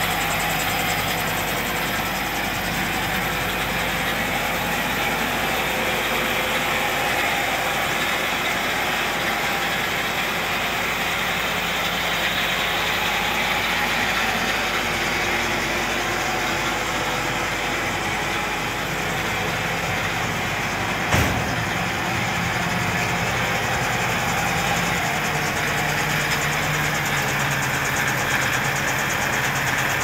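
Farm tractor engine running steadily at idle, with one short sharp knock about three quarters of the way through.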